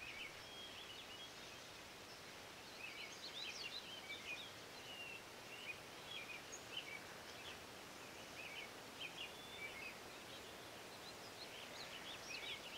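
Small birds chirping faintly in short scattered calls over a steady, soft outdoor hiss.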